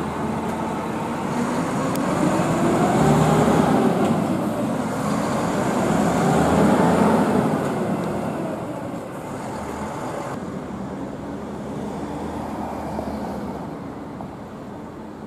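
A heavy flatbed lorry's diesel engine pulling under load, rising and falling in pitch twice as it revs up and eases off. It then gives way to a quieter, steady traffic noise.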